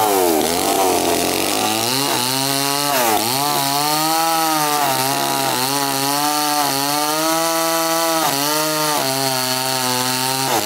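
Two-stroke chainsaw cutting into a coconut palm trunk at full throttle. The engine note sags several times as the chain bites under load, then picks back up.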